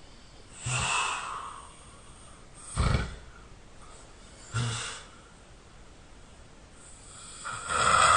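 A person snoring in their sleep: four separate snores over about eight seconds, two short sharp snorts between two longer breathy ones, the loudest near the end.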